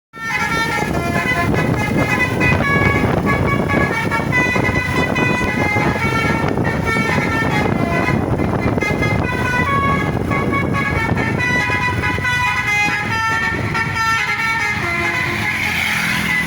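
A bus's telolet horn, a multi-note musical air horn, plays a fast running tune of stepped notes without pause. Engine and road noise run steadily underneath.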